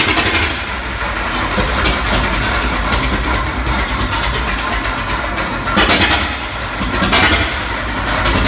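Old Holt stationary engine running just after a cold start, firing steadily with a few brief louder surges.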